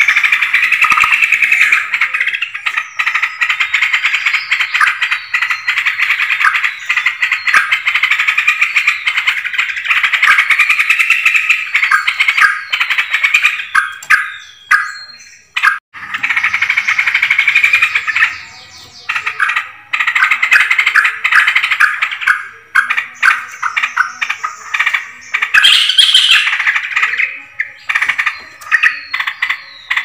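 Yellow-vented bulbuls calling: a loud, dense stream of bubbly chattering notes, breaking off briefly about sixteen seconds in before resuming.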